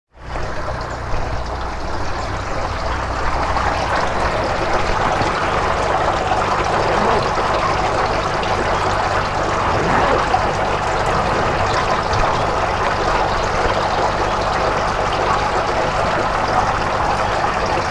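Water running steadily from a pipe into a glass aquarium tank, a continuous splashing rush, with a low steady hum underneath.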